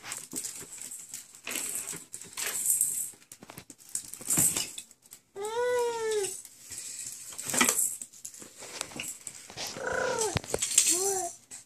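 A baby's wordless pitched vocal sounds: one long arching squeal about five and a half seconds in, then a few shorter ones near the end. Light knocks and clatter of plastic toys sound in between.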